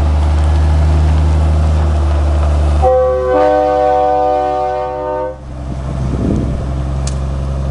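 Peterbilt log truck's diesel engine running under load up a grade, then one long blast of its train-style air horn, a chord of several notes lasting about two and a half seconds. After the horn the engine sound dips briefly and then comes back.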